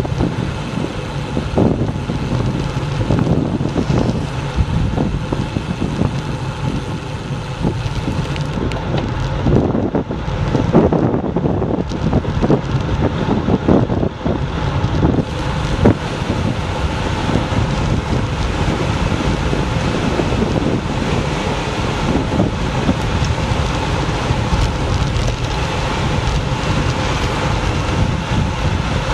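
Wind rushing over an action camera's microphone on a fast bicycle descent, with steady tyre and road noise. Irregular knocks and rattles over bumps in the tarmac, thickest from about ten to fifteen seconds in.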